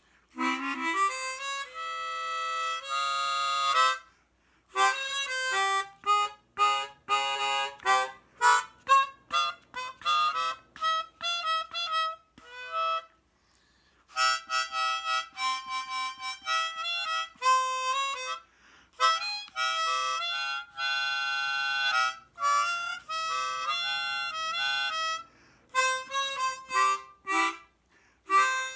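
Vintage 12-hole Hohner Super Chromonica chromatic harmonica being played, with runs of quick short notes between held notes and chords, and a couple of brief pauses.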